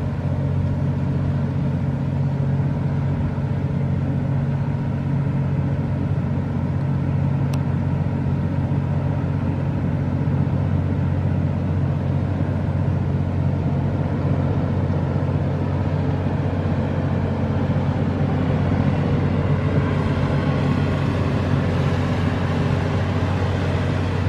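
Boat engine running steadily: a loud, unchanging low drone.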